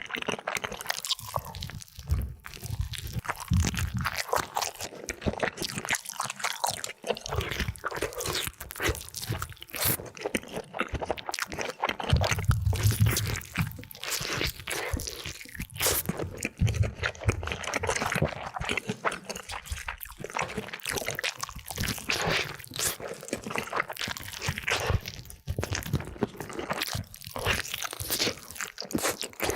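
Close-miked eating: crunchy bites and chewing of crispy food, a dense, unbroken run of crackles, with low thuds now and then, the strongest about twelve seconds in.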